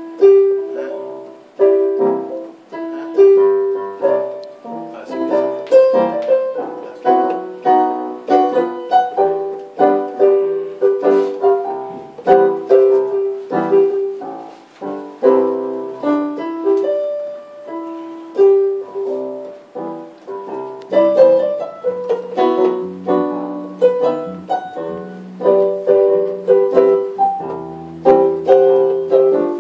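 Electronic keyboard played with a piano sound: a slow accompaniment of struck chords and melody notes, each note fading after it is played.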